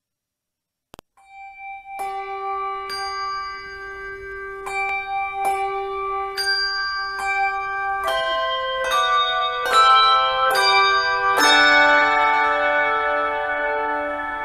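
Music of ringing bell tones: single struck notes about a second apart at first, then quicker notes that overlap into chords from about eight seconds in.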